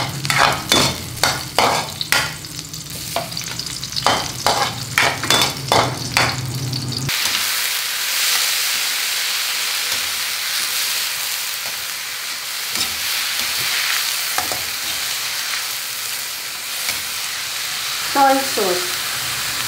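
A cooking utensil stirring and knocking against a pan in a rapid series of sharp strikes over a low hum; then, after a sudden change about seven seconds in, a steady sizzle of food frying in the pan.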